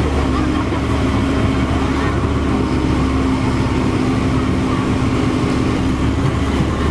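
Komatsu PC130F excavator's diesel engine running steadily at an even speed, with a constant low hum.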